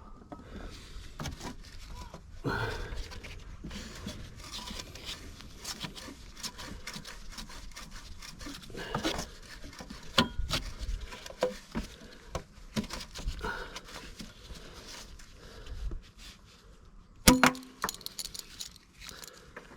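Scattered metal clicks, scrapes and rustles as mole grips work a seized battery clamp stud, loosened by heat, round in its thread, with one sharp click near the end.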